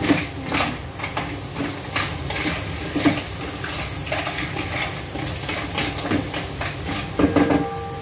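A spatula scraping and clacking against a frying pan as chicken pieces are turned, over a low sizzle of frying. A louder clatter of cookware comes near the end.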